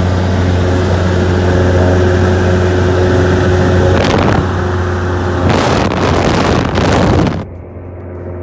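Cessna F152 light aircraft's four-cylinder piston engine and propeller heard from inside the cockpit in cruise, a steady low drone, with rushing air noise swelling about four seconds in. Near the end the sound suddenly drops and turns muffled.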